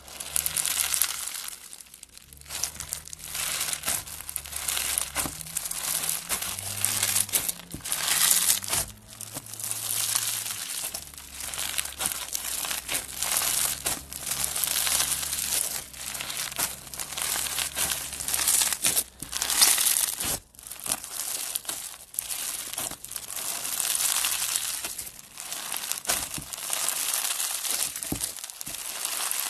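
Crunchy slime packed with tube-shaped plastic beads being squeezed, poked and pulled apart by hand: dense crackling and crunching that swells and eases in repeated surges.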